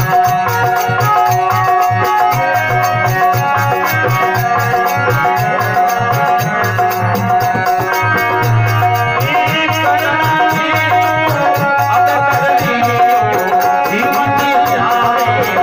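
Rajasthani folk bhajan music: a harmonium playing a steady held melody over a dholak drum's repeated strokes, with jingling hand percussion.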